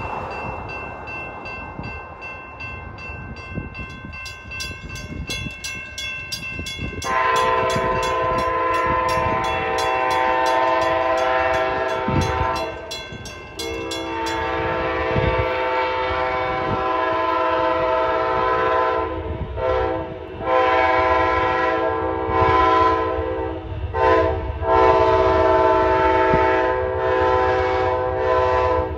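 Amtrak locomotive's K5LA five-chime air horn sounding as the train approaches: steady long blasts, growing much louder about a quarter of the way in. In the second half it is quilled into a run of short and long blasts.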